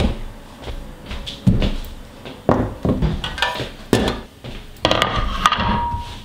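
Kitchen things being set down and moved on a wooden worktop: a yoghurt tub, a metal box grater, a ceramic bowl and a chopping board, making a series of separate knocks and clatters. A brief ringing note sounds near the end.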